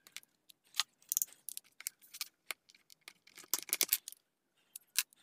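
Plastic housing clips of a Samsung B310 keypad phone clicking and snapping as a plastic pry tool works the case apart. The sharp clicks are scattered, with a quick run of them about three and a half seconds in.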